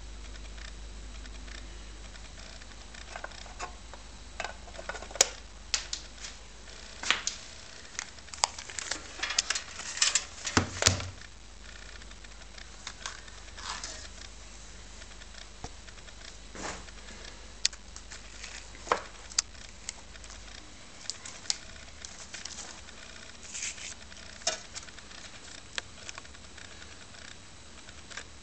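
Handling noise: irregular light clicks and knocks, busiest a few seconds in, over a faint low hum that fades out about two-thirds of the way through.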